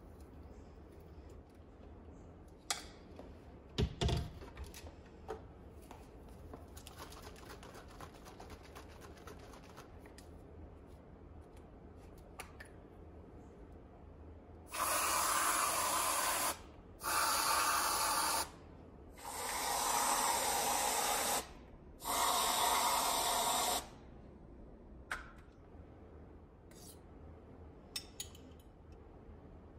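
Aerosol whipped-cream can spraying in four hissing bursts of a second and a half to two and a half seconds each, topping the smoothies. Earlier, a sharp knock about four seconds in.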